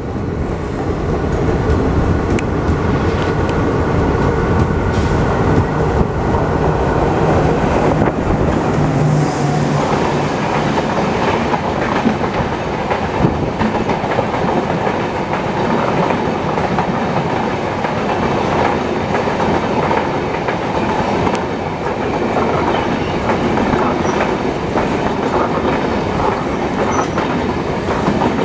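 Indian Railways express train passing close by at speed: a steady loud rush of coach wheels on the rails, with many sharp clicks as they clatter over the rail joints.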